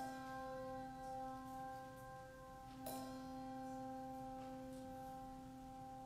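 Slow music of struck, bell-like notes: two strikes about three seconds apart, each ringing on in sustained tones.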